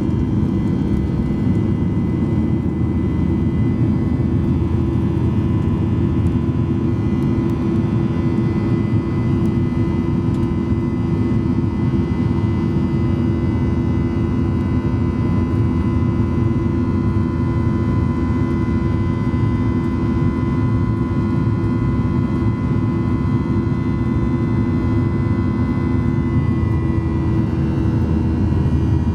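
Boeing 737-800's CFM56-7B turbofan engines heard from inside the cabin at high thrust during takeoff or climb: a steady, loud rush with a hum and fan whine, whose pitch dips slightly near the end.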